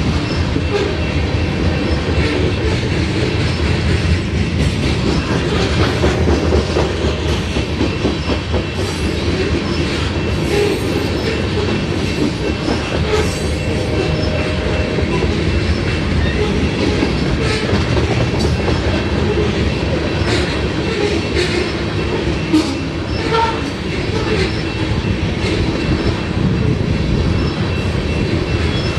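Loaded covered hopper cars rolling past: a steady rumble of steel wheels on rail with irregular clacks, and a grade-crossing bell ringing at an even beat.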